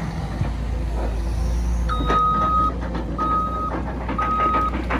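A Caterpillar excavator's diesel engine runs at a low idle. From about two seconds in, a heavy-equipment backup alarm sounds three evenly spaced single-tone beeps.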